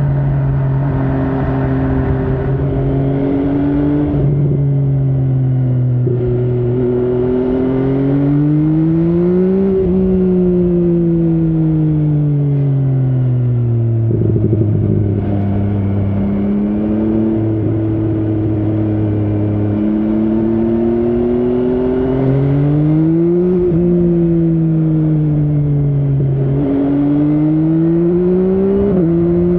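MV Agusta Brutale 800's inline three-cylinder engine under way: the revs climb, fall back and hold steady for several seconds, then climb twice more near the end, each climb cut off by a sudden drop in pitch.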